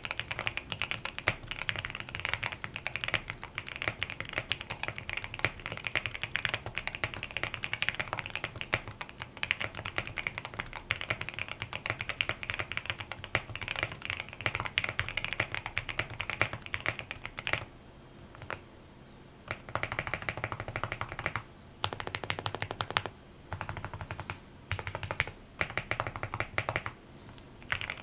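Fast typing on a QK65 custom mechanical keyboard with lubed Gateron Oil King linear switches, a POM plate and foam dampening: a dense, continuous run of key strikes, then from about 17 seconds in, shorter bursts of typing separated by brief pauses.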